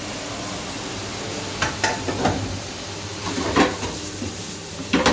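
Beef mince sizzling steadily as it fries in a hot pan with spring onion, ginger, chilli and garlic, with a few sharp knocks against the pan as it is tipped in and stirred.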